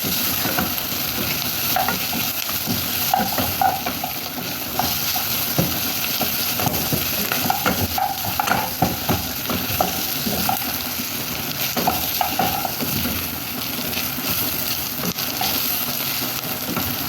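Onions frying in oil in a pan, sizzling steadily, while a utensil stirs them with frequent short scrapes and clicks against the pan.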